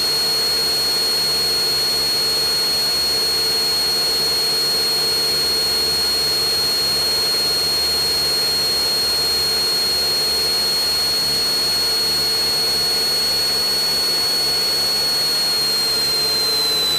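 Cessna 172 Skyhawk's engine and propeller heard inside the cabin at climb power after takeoff: a loud, steady drone with a steady high-pitched whine over it that dips slightly in pitch near the end.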